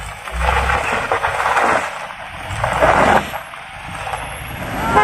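Toyota Veloz MPV climbing a steep dirt and gravel slope, its engine working hard and its tyres crunching over loose stones, loudest in two surges as it passes.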